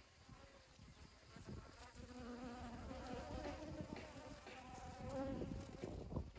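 Honeybees buzzing as they fly in and around a flower to gather pollen: a hum of wingbeats whose pitch wavers as the bees move, growing louder from about a second and a half in as more bees arrive.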